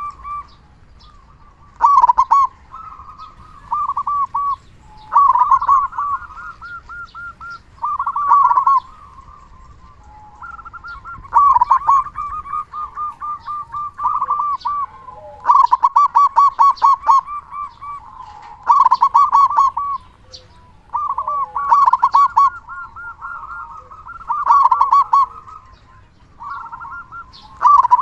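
Local zebra dove (perkutut) cooing loudly in repeated bouts of rapid, stuttering notes, one bout every two to three seconds. The notes are low and full, the 'big voice' prized in a bird that sings readily.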